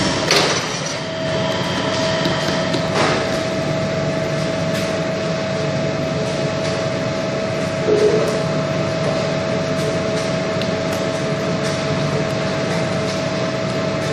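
Bakery machinery running with a steady mechanical hum. A steady whine comes in about a second in, with a few knocks and clatters over it.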